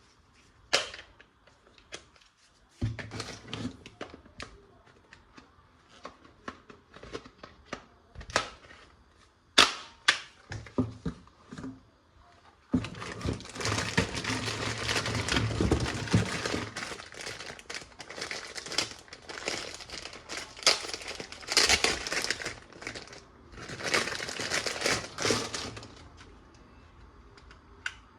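Plastic toy guns and their packaging being handled during unboxing: scattered sharp clicks and snaps for about the first twelve seconds, then continuous crinkling and rustling of packaging, with a short break near the end.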